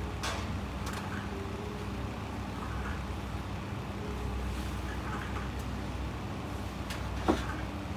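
Steady low background hum, with a few faint ticks and one sharp tap near the end.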